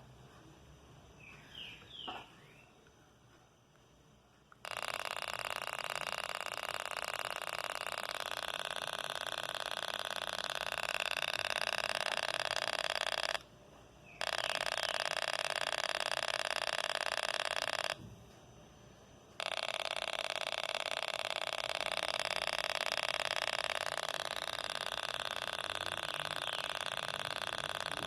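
Toy sound-effect circuit built around a 555 timer, sounding through a small speaker: a harsh, rapid electronic buzz that switches on about five seconds in and runs steadily, cut off twice for a second or so before starting again.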